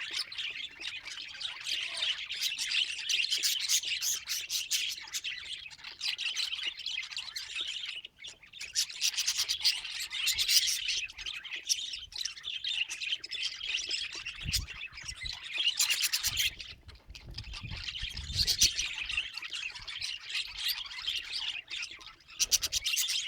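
Budgerigars chattering and warbling in a rapid, continuous stream of squawks and chirps, broken by short pauses. Low rumbles come in partway through.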